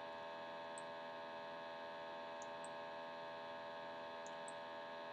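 Faint steady electrical mains hum in the recording, a ladder of even tones, with a few tiny high ticks scattered through it.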